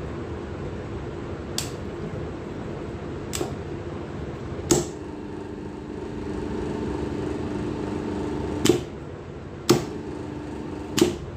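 Motor contactor clacking in and dropping out as a hand triggers the sensor, switching an electric motor on and off. The motor hums steadily for about four seconds after the first loud clack, then again for a little over a second after the next one, with two lighter clicks before.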